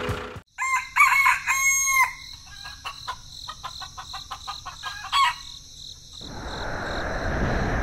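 A rooster crowing once, followed by short scattered clucks. About six seconds in, a steady rushing like rain starts and grows louder.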